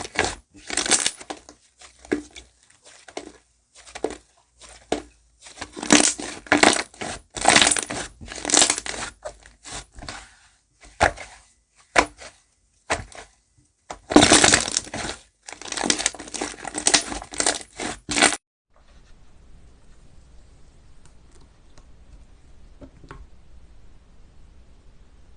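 Slime being squeezed and pressed by hand in irregular crackling, crunching bursts, which stop about three quarters of the way through.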